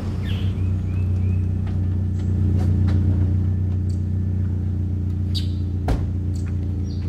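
Toyota pickup truck's engine idling with a steady low hum, with one sharp knock about six seconds in.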